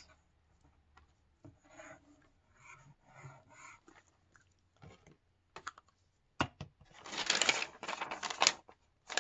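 A glue stick rubbing faintly along the edge of a sheet of paper, then, about seven seconds in, a loud crinkling rustle of stiff paper being handled.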